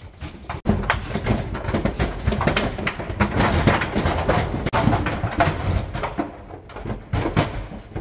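Lambs' hooves clattering and knocking on the metal ramp and deck of a livestock trailer as the lambs are pushed aboard, a quick, uneven run of knocks.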